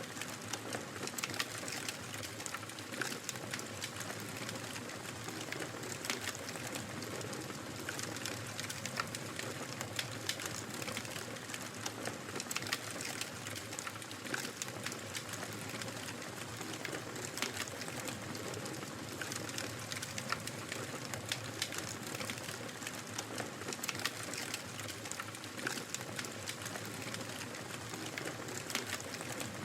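Wood fire crackling: a steady hiss with frequent, irregular small pops and snaps.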